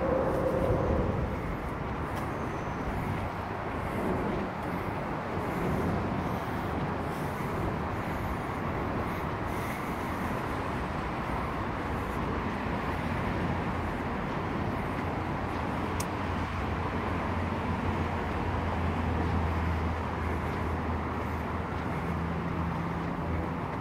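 Steady rush of distant road traffic, with a low drone joining in over the second half.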